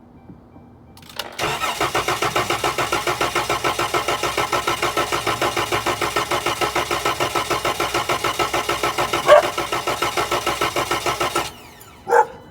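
Starter cranking the 2013 Chrysler Town and Country's 3.6-litre V6 for about ten seconds with the gas pedal held to the floor: a steady, even, rhythmic chug that never picks up, then stops suddenly. The engine fails to start on a cold morning because the fuel pump, fed through a jumper that bypasses the faulty fuel pump relay, loses power during cranking.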